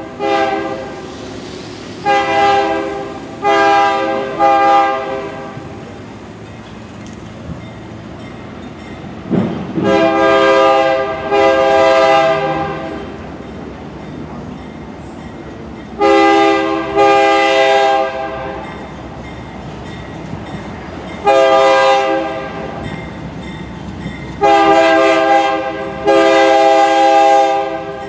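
Diesel freight locomotive's multi-chime air horn sounding a series of blasts, each one to two seconds long and in groups. The first group, a couple of seconds in, runs long, long, short, long: the grade-crossing signal. The train runs between the blasts.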